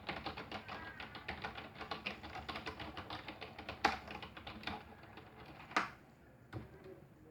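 Rapid typing on a computer keyboard, a fast run of key clicks, with two louder sharp clicks about four and six seconds in.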